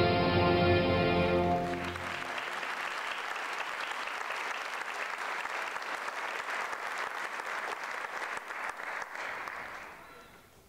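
Music ends on a held chord about two seconds in, and audience applause follows, a steady clapping that fades out near the end.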